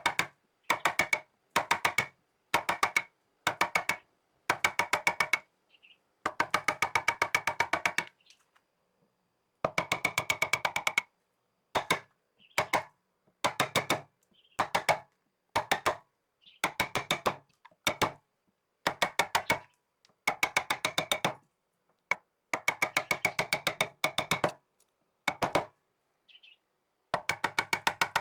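Repeated bursts of rapid sharp knocking, about a dozen strikes a second, each burst lasting up to about two seconds and separated by short silences.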